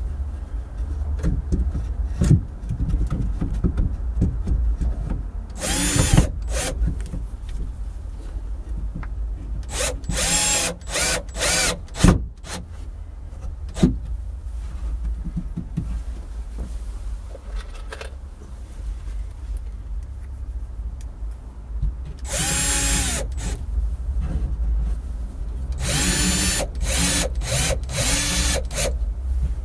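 Cordless drill-driver driving plasterboard screws through plasterboard into a timber batten, in several short bursts, its pitch rising and falling as each screw goes in. A few sharp clicks fall between the bursts.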